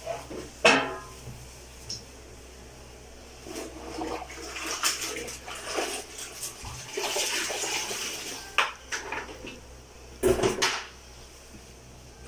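A floor cloth is wiped over wet floor tiles, then dunked and wrung out in a plastic bucket of water, with splashing and dripping. A sharp knock with a short ring comes about a second in, and the loudest splash comes near the end.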